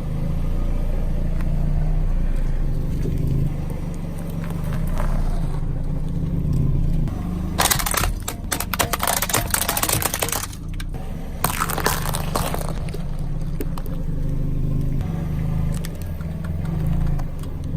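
A car rolling slowly with its engine running low, as objects under a tyre crackle and crack in two long stretches, the second shorter.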